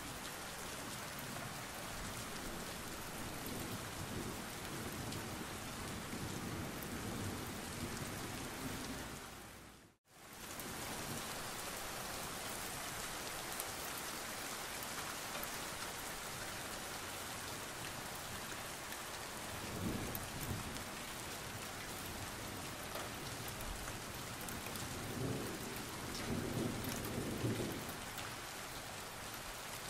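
Steady rain falling on a wet city street, an even hiss of drops on pavement. It cuts out for a moment about ten seconds in, and low rumbles swell up briefly later on, most strongly near the end.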